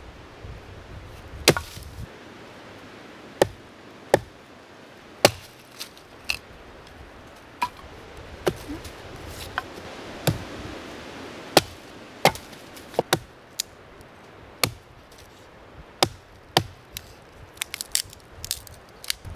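Firewood being chopped: a series of sharp, separate chopping strikes at irregular intervals, roughly one a second, coming closer together near the end.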